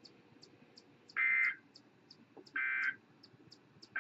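NOAA Weather Radio's EAS/SAME digital end-of-message code: short buzzy bursts of two-tone data, each about a third of a second long and about 1.4 s apart. Two bursts sound, and a third starts at the very end. They signal that the weekly test broadcast has ended.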